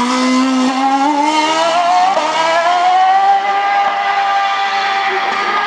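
Red Bull RB9 Formula 1 car's 2.4-litre Renault V8 at high revs. The pitch rises for about two seconds as the car accelerates, then levels off into a steady high note as it pulls away.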